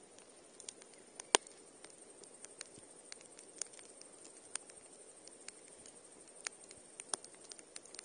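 Wood campfire crackling: irregular sharp pops and snaps from the burning logs over a faint steady hiss, with one loud pop about a second in.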